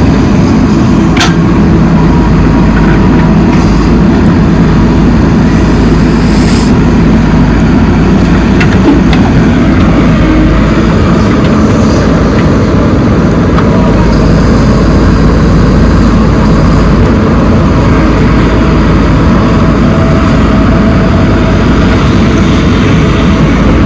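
Heavy diesel engines of a backhoe loader and tractor running steadily under load, with a couple of brief knocks.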